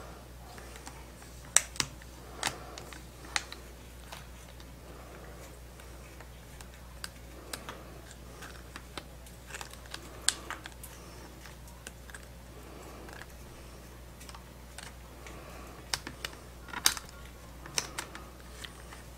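Irregular light clicks and taps of a hobby knife and fingertips trimming and pressing vinyl decal on the hard shell of an AFX FX-41DS motorcycle helmet, over a faint steady low hum.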